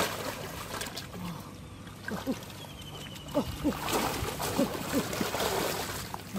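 River water splashing and sloshing, with a series of short plops between about two and five seconds in, over a steady low hum.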